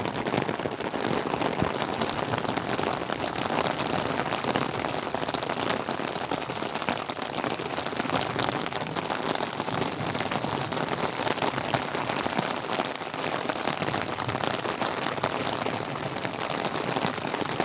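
Steady rain falling on pine trees and hillside scrub: an even, dense hiss of drops.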